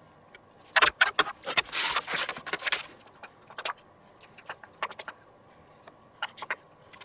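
A metal spatula clinking and scraping against a stainless steel pan for about two seconds, followed by scattered light clicks and taps.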